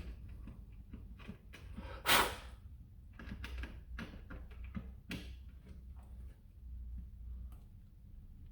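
Small clicks, taps and scrapes of kit parts being handled and pushed into place, with a louder scrape about two seconds in, over a faint low hum.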